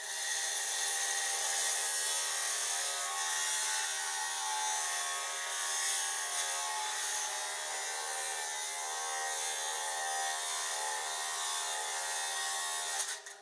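A 120 mm continuous sintered-rim diamond blade on a lapidary saw cutting through opal: a steady whine and hiss of the blade grinding through the stone, which cuts off suddenly near the end.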